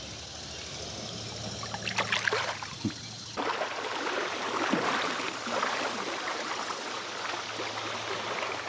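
Shallow creek water running, with a few sharp splashes about two seconds in; the water gets suddenly louder about three and a half seconds in, as of wading through the current.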